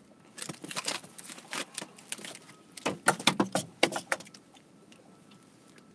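Clattering and rattling of small hard objects being handled in a boat. It comes as a string of sharp clicks in two flurries, the second one louder, and stops a little after the middle.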